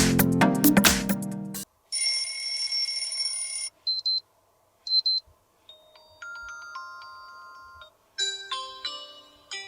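Xiaomi Redmi Note 8 2021 alarm tones played one after another, each cut short. A loud electronic beat stops about a second and a half in, followed by a buzzing held tone, two short beeps, a run of overlapping held notes, and a new short melody near the end.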